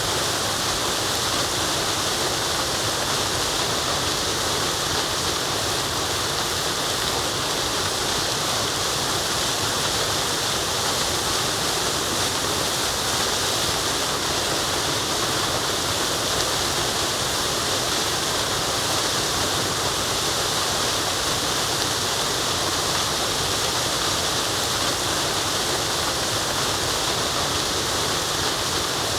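Waterfall with running water, a steady rushing hiss with no breaks.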